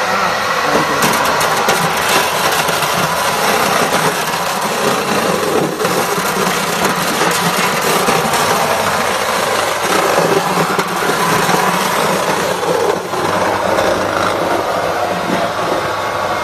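Small electric sweet potato pulverizer running under load, its spinning blades grinding whole sweet potatoes into pulp: a loud, steady whirring grind with scattered sharp knocks as the potatoes are fed in.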